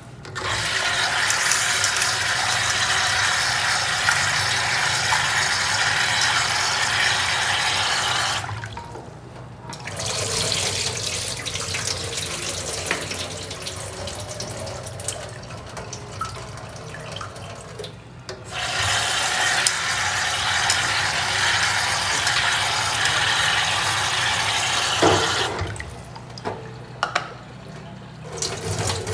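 Water tap running into a sink in spells: a strong flow for about eight seconds, a short stop, a softer flow with light knocks, a strong flow again, and a break before it starts once more at the end.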